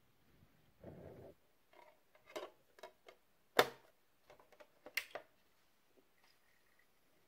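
Handling of a top-loading portable CD boombox: a disc being set in place, the lid and buttons giving a string of sharp plastic clicks. A brief rustle comes about a second in, and the loudest click about three and a half seconds in.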